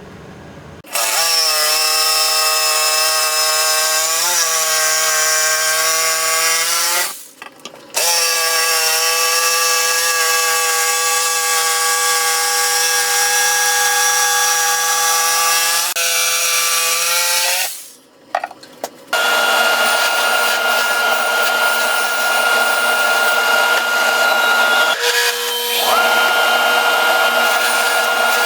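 Electric power tools working wood: one tool runs steadily with a humming whine, stopping twice for about a second. Then a different, noisier tool with a higher whine runs, dropping out briefly near the end.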